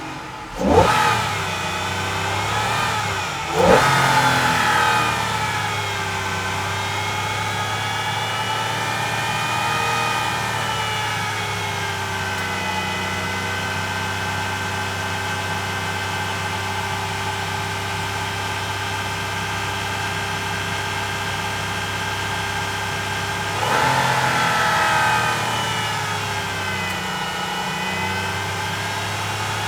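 Aston Martin engine revved sharply twice near the start, then idling steadily. About 24 seconds in it is revved once more before it settles back to idle.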